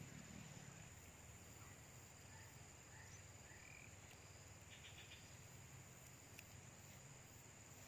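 Near silence: faint outdoor background with a thin steady high tone and a few faint chirps.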